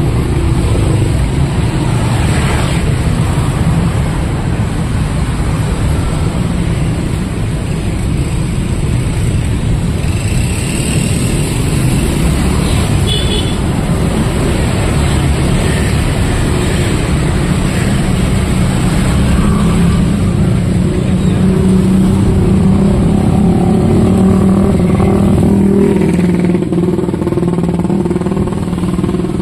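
Street traffic: motorcycles and cars running past in a steady stream, with a steady engine hum building in the second half.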